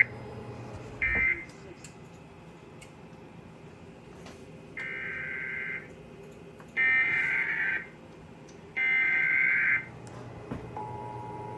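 Emergency Alert System data tones: a short end-of-message burst about a second in, then three warbling digital header bursts of about a second each, a second apart, marking the start of the next alert. Near the end the steady two-tone attention signal starts.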